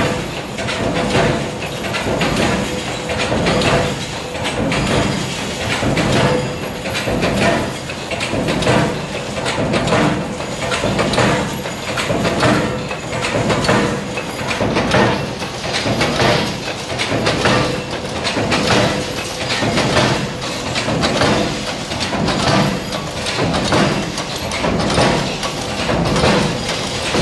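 Cold-heading (cold-forging) bolt-making machines running: a continuous rapid metallic clatter over a steady hum, swelling in a regular cycle about every second and a half.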